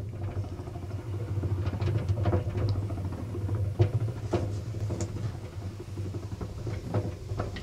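Honey extractor spinning comb frames in its stainless-steel drum: a steady low hum with scattered clicks and knocks as it turns.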